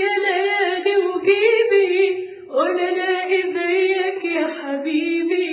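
A woman singing unaccompanied, holding long wavering notes, with a short break for breath about two and a half seconds in.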